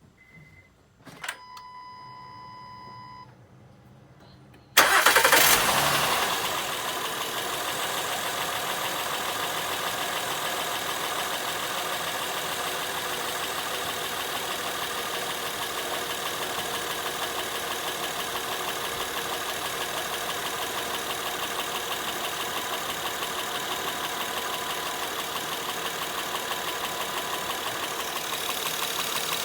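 A short electronic chime from a second-generation Honda Pilot, then its 3.5-litre V6 cranks and starts about five seconds in, flares and settles to a steady idle with a fast, even knock from the engine.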